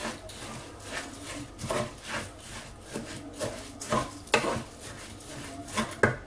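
Wooden spatula stirring and turning raw, washed rice in a pot: irregular scraping strokes of the spatula through the grains and against the pot, with a few sharper, louder scrapes about four seconds in and near the end.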